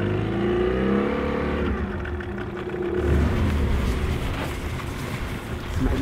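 Fishing boat's motor running, its pitch rising slightly over the first two seconds, then a steady low rumble.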